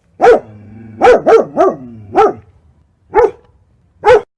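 A dog barking: seven short barks at uneven intervals, three of them in quick succession just after the first second.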